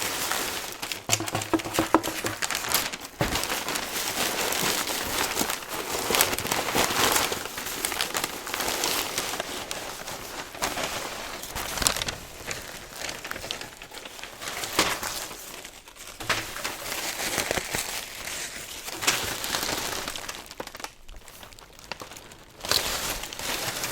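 Packaging crinkling and crackling as it is handled, a continuous run of small crackles and rustles.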